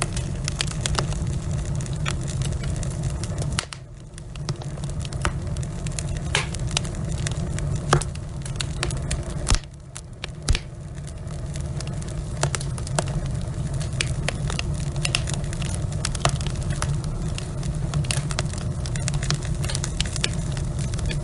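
Log fire in a fireplace burning with a steady low rumble and dense crackling, with a few louder pops near the middle. The rumble drops away briefly twice.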